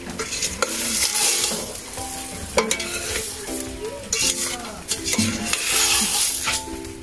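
Salmon head sautéing with tomato, onion and ginger in a stainless steel pot, sizzling steadily while a metal ladle stirs it, with repeated clinks and scrapes of the ladle against the pot.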